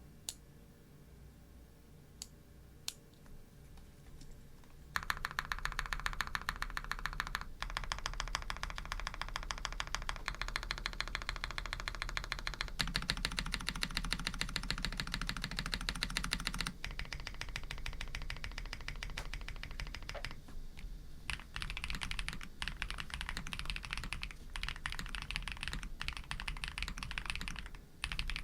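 Custom Tiger Lite 80 mechanical keyboard being typed on. It has lubed Pado v2 switches, a polycarbonate plate, full foam and GMK keycaps. A few single key presses come first, then fast continuous typing starts about five seconds in and carries on with a couple of brief pauses.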